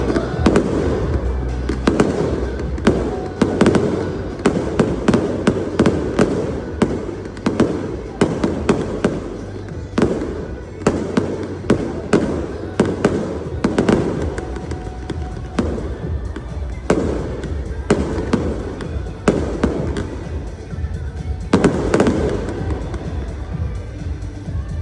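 Fireworks going off in rapid succession: a dense string of sharp bangs and cracks, several a second, with deep booms underneath, as in a finale barrage.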